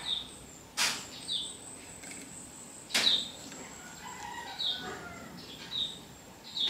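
Three sharp knocks on a wooden cutting board while tomato slices are handled and set down: about a second in, about three seconds in, and at the end. Short falling bird chirps sound in the background every second or so.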